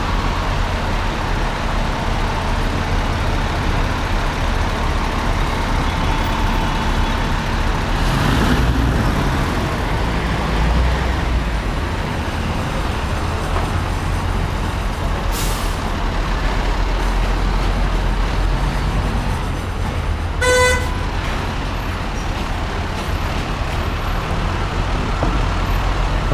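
A fire truck's diesel engine runs steadily amid city traffic, with a short hiss about halfway through. One brief horn toot comes near the end.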